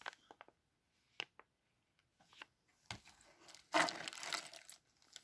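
Small clear plastic bags of LEGO minifigures crinkling as they are handled. There are a few light clicks in the first second and a half, then a louder rustle of plastic in a cardboard box about four seconds in.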